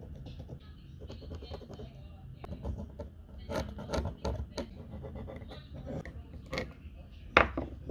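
Pencil scratching along a wooden board as lines are marked, with tools knocking on the wooden bench top as a steel try square and folding rule are placed; a string of knocks comes in the second half, the loudest near the end.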